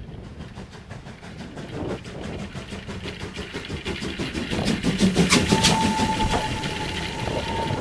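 A rhythmic mechanical clatter that speeds up and grows louder, joined about five seconds in by one steady, high whistle-like tone.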